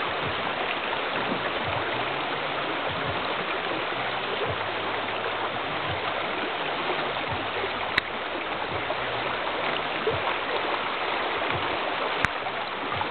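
Rushing river rapids: a steady hiss of whitewater. Two sharp clicks cut through it, about eight seconds in and near the end.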